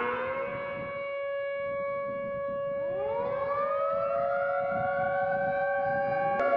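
Civil defense warning sirens sounding a steady multi-tone wail, a nuclear power plant emergency warning. One tone rises and holds near the start, and about three seconds in a second siren winds up in pitch and levels off alongside it. There is a sharp click near the end.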